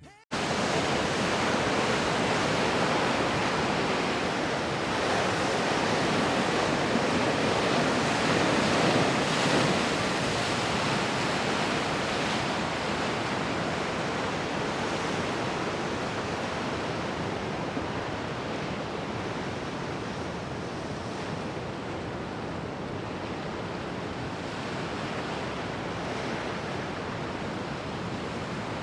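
Steady rushing noise of wind and ocean surf, loudest in the first third and easing gradually after.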